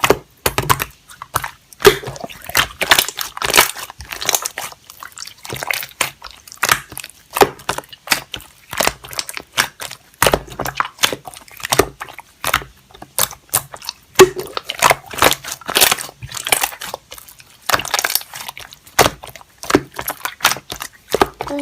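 Slime being squeezed and poked by hand, giving a dense, irregular run of sticky clicks, pops and squishes.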